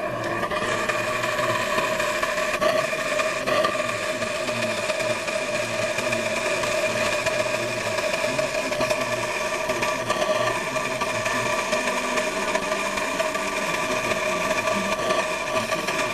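Homemade gasoline vapor burner running lit: a steady rushing flame noise carrying several constant humming tones, holding an even level without sputtering.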